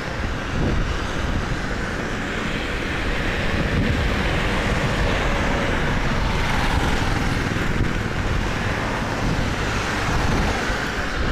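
Vehicles passing on a rain-soaked road in steady rain, their tyres hissing on the wet asphalt over a low rumble.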